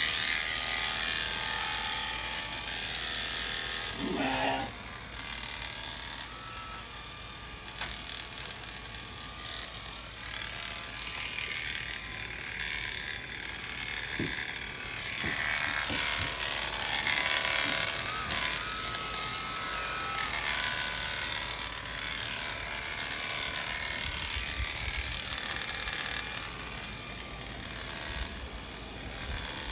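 Premier One electric sheep shearing clippers running steadily as they cut through a ram's fleece, a continuous buzz that gets louder in stretches.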